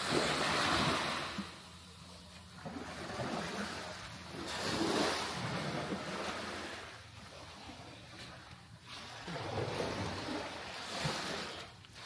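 Small waves washing onto a sandy beach, swelling and fading three times about four to five seconds apart.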